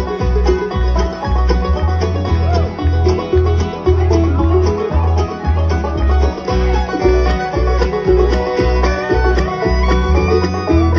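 Live bluegrass band playing an up-tempo tune through a PA: picked acoustic guitar, mandolin and fiddle over a steady bass beat.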